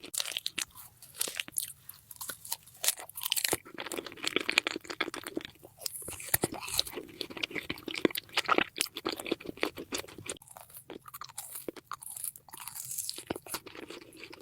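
Close-miked eating of fruit: crisp bites and crunching with wet chewing, in quick irregular clicks throughout.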